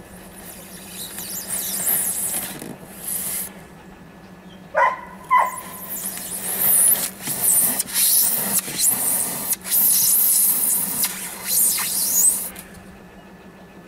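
A knife blade sawing through the styrofoam wall of a cooler, squeaking and rasping in a run of strokes. It starts about a second in and stops near the end.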